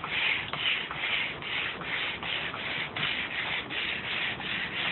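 Hand sanding block with 80-grit sandpaper rubbing back and forth over a varnished wooden tabletop, about three strokes a second. Each stroke rasps off the old finish and stain.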